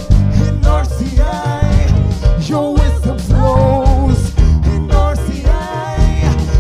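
Live gospel worship music: bass guitar and drums with a steady beat, and a voice singing a wavering, drawn-out melody over it from about a second in.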